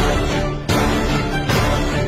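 Background music with a strong, steady beat, its hits landing about once every 0.8 seconds.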